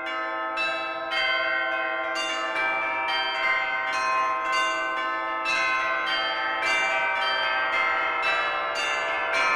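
Bells ringing a run of notes, a new strike about twice a second, each tone ringing on under the next.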